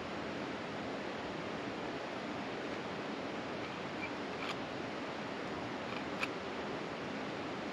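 Steady rushing background noise, with two faint sharp clicks about four and a half and six seconds in, typical of climbing gear (tool or crampon) catching on rock.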